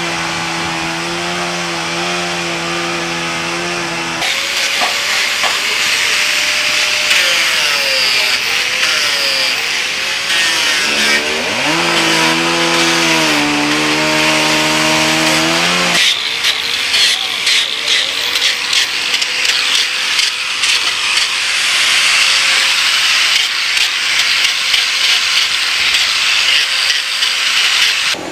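Power carving tools working wood. A motor runs at a steady pitch, then a tool's pitch dips and climbs as it bites into the wood. From about halfway, a hand-held rotary disc sander grinds a wooden sculpture with a rough, rapid, scratchy rasping.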